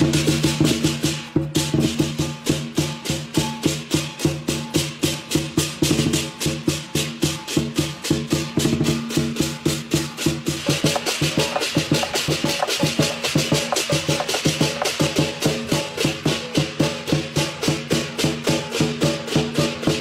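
Lion dance percussion playing: fast, even cymbal clashes about four a second over drum beats, with steady low ringing tones underneath. The clashes get brighter about halfway through.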